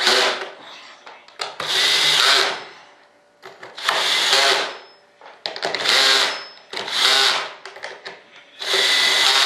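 Cordless drill running in short bursts of about a second each, about six times, with a whining motor and brief pauses between runs at the bolted flange of a hatch mold.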